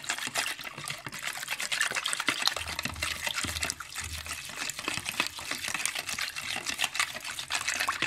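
Whisk beating a thin egg, milk and oil batter in a bowl: quick, continuous wet sloshing strokes.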